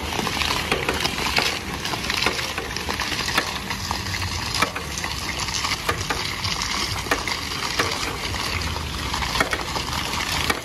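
Ice-cream hand roller drum spinning, its frozen fruit-and-milk coating rubbed under gloved hands: a steady crackling hiss with many scattered small clicks.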